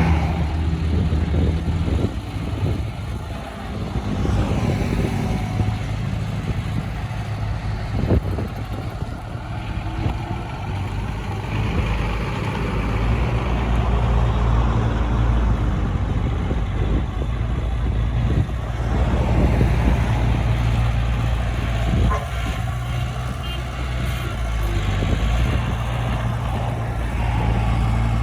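Diesel engine of heavy earthmoving machinery running with a steady low drone that swells and eases with load, with a couple of brief sharp knocks.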